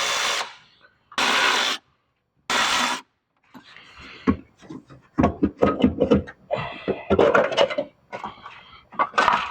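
A cordless power tool runs in three short bursts during the first three seconds, spinning fasteners off the small-block Chevy's valve cover studs. A run of irregular metal clanks, knocks and rubbing follows as parts and tools are handled.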